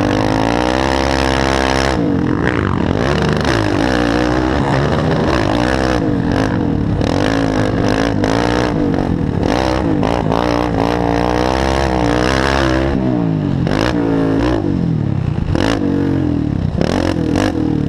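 Racing quad (ATV) engine revving hard and easing off again and again, its pitch rising and falling with the throttle and gear changes.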